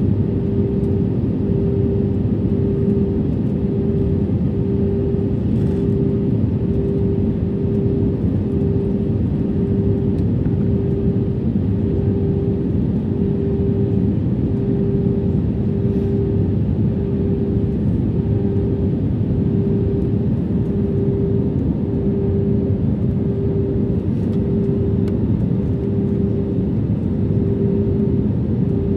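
Airbus A320 cabin noise heard from a window seat over the wing: a steady rumble of engines and airflow, with a hum that swells and fades about once a second.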